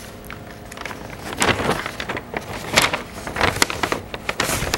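Paper envelopes rustling and crinkling in short bursts as a white envelope and a manila envelope of gaskets are handled and laid down on a workbench.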